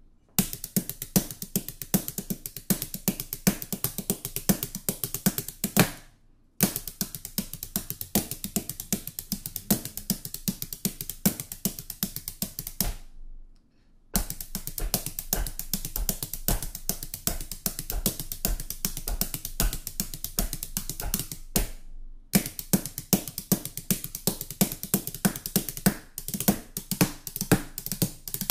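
Hot Rods bundled wooden dowel drumsticks played on a kitchen countertop: a fast, dense drumming rhythm of sharp clattering strikes, with three short pauses.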